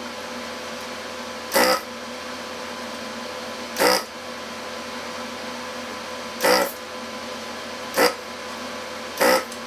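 Hakko-808 desoldering gun's built-in vacuum pump switching on in short bursts, five times, each about a quarter second, as the button is pressed to suck molten solder from a chip's pins on a circuit board.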